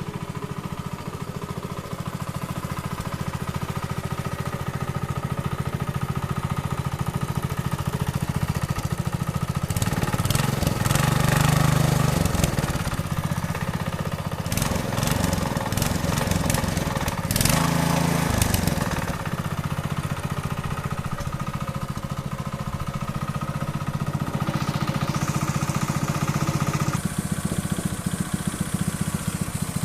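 Small engine idling steadily after a repair, revved up and back down twice, about ten and seventeen seconds in.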